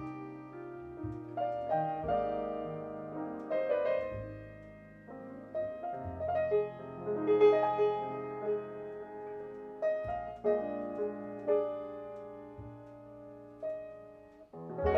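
Grand piano playing a slow jazz passage, single notes and chords struck and left to ring. A loud low chord is struck near the end.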